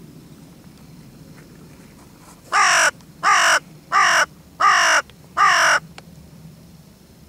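Hooded crow cawing five times in an even series, each caw about a third of a second long and dropping slightly in pitch.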